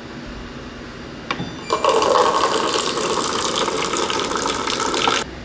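A click, then a few seconds of water rushing out hard, which stops abruptly.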